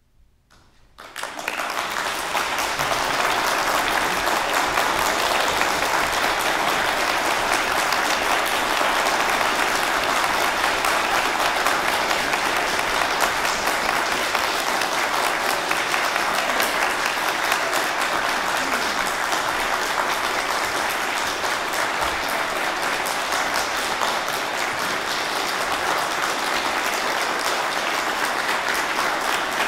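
Audience applauding at the close of a performance: after about a second of near silence the clapping starts, swells quickly and then holds steady.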